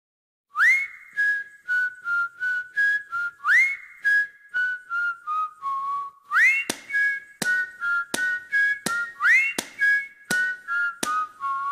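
Background music: a whistled tune that swoops up at the start of each phrase, over a light, regular clicking beat.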